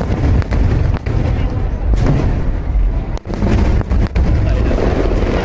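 Fireworks display: aerial shells bursting in a rapid barrage. The booms overlap into a continuous deep rumble, with several sharp reports standing out about once a second.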